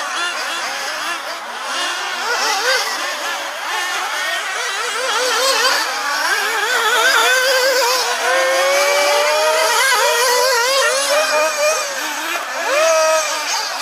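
Several radio-controlled off-road racing buggies running on a dirt track, their motors whining up and down in pitch as they accelerate and brake, several at once overlapping.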